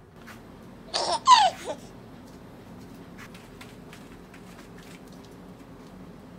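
Three quick, high-pitched squealing calls, each falling in pitch, about a second in, then a few faint taps.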